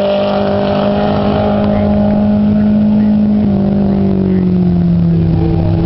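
Race car engine running hard at steady revs, its pitch stepping down a little past halfway and then easing lower.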